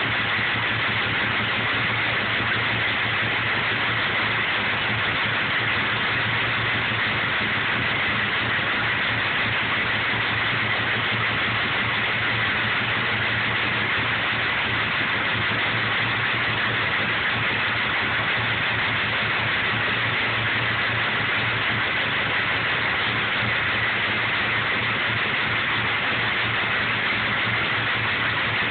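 A 6.0-litre engine idling steadily, heard as an even, hissy running noise with a low hum underneath.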